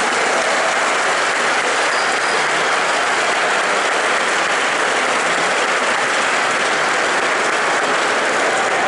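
Audience applauding, a dense and steady sound of many people clapping.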